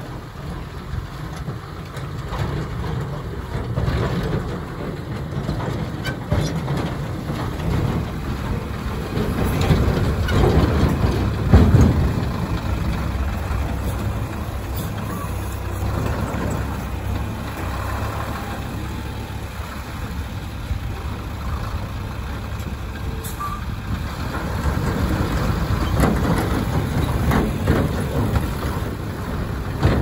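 Diesel engines of a JCB 3DX backhoe loader and an Ashok Leyland lorry running as the lorry pulls up and manoeuvres into place beside the backhoe. The engine noise swells for a couple of seconds around the middle.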